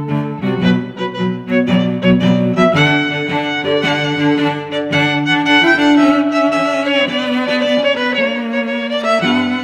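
Background music: bowed strings, led by a violin, playing sustained notes.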